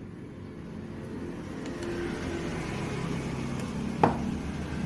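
Low, steady engine rumble that slowly grows louder, with one sharp knock about four seconds in.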